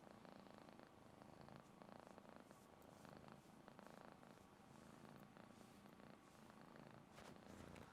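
Domestic cat purring faintly and steadily while being petted.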